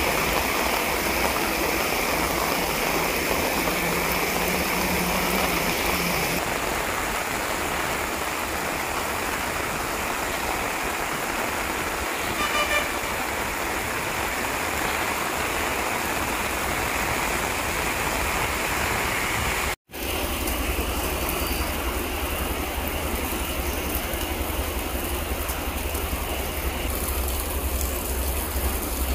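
Heavy rain pouring down onto puddles and a wet road: a dense, steady hiss of splashing drops.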